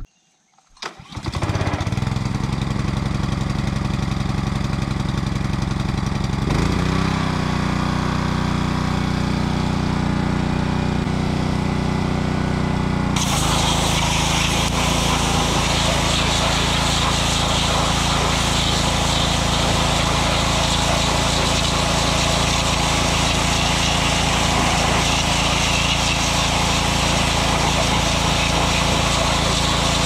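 Troy-Bilt pressure washer's Honda petrol engine running steadily, its note shifting about six seconds in. About thirteen seconds in, a loud steady hiss of high-pressure water spray joins it and runs on.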